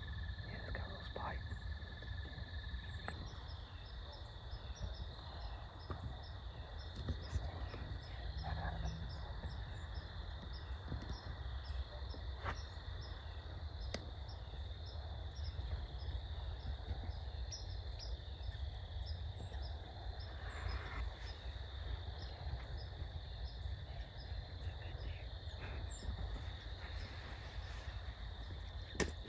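Insects calling steadily, a constant high trill with rows of short repeated chirps above it, over a low steady rumble.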